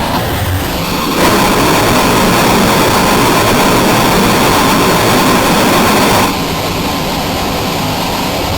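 Loud, harsh static-like noise with no clear pitch. It gets louder about a second in and drops back about six seconds in.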